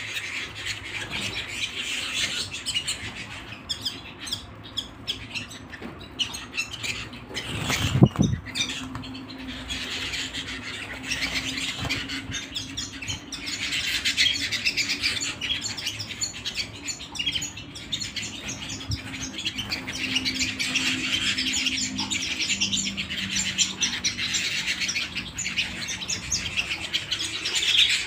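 Canary singing continuously in long, rapid trills and rolls. A single loud thump sounds about eight seconds in.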